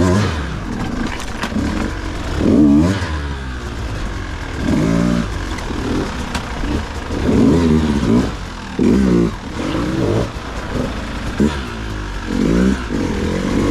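Dirt bike engine revving up and falling back again and again, a surge of throttle every second or two, as the bike works along rough single track.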